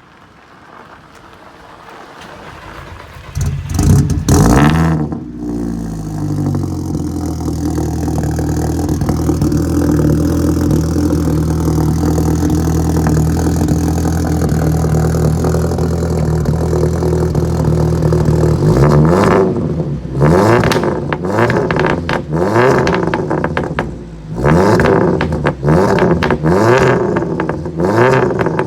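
Seat Leon Cupra R's turbocharged four-cylinder engine starting from cold. It fires about three seconds in with a flare of revs, settles into a steady fast cold idle, then from about two-thirds of the way through is blipped again and again, with pops and crackles from the exhaust as the revs drop.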